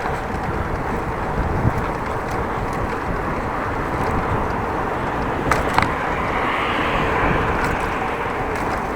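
Steady wind noise and rumble on an action camera's microphone while cycling, with two brief clicks about five and a half seconds in.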